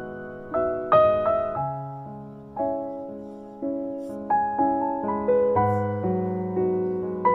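Background piano music: a gentle melody of single struck notes over chords, each note fading after it is played.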